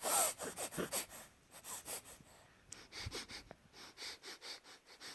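A baby's congested, snuffly breathing through a stuffy nose: a quick run of short wheezy breaths and sniffs, loudest at the start. These are the sniffles of a blocked nose.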